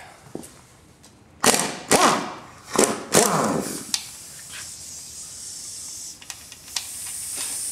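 Hand tools knocking against the aluminium crankcase of a Yamaha R6 engine as its case bolts are worked loose: about four sharp knocks in quick succession through the middle, then a steady hiss that rises near the end.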